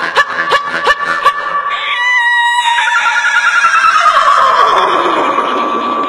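Jaw harp twanging in even plucks, about three a second, over its steady drone. It gives way about two seconds in to a vocal animal imitation: a short high cry, then a long wavering call that falls steadily in pitch.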